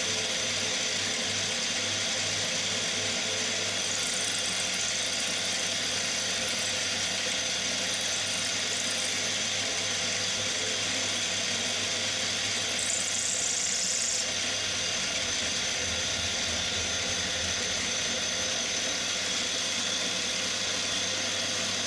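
Cormak ZX 7045 mill's spindle running under load as an end mill cuts a slot in an aluminium bar: a steady machining sound with high-pitched whining tones, a little brighter about thirteen seconds in.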